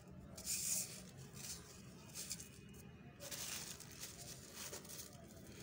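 Dry, grainy sand-cement mix crumbled between fingers and sifted through a metal-mesh sieve, the grains hissing and pattering down onto a heap of powder. There is a louder rush of falling grit about half a second in, and a longer pour past the middle as the sieve is tipped out.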